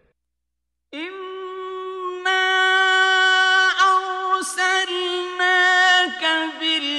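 A male reciter chanting Quranic Arabic in a slow, melodic style. After a short silence he comes in about a second in and holds long, steady notes, with ornamented turns where the pitch steps between phrases.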